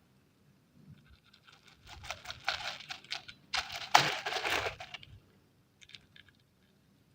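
Water balloon being cut open, with water spraying and splashing out in two crackly spells, the second louder and starting with a sharp hit. A few faint ticks follow near the end.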